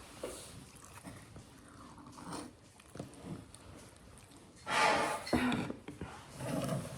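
Close-up chewing and mouth sounds of someone eating cheesy enchiladas: soft wet smacks and clicks. About two-thirds of the way through, a louder pitched sound from a voice or a dog rises over the chewing for about a second.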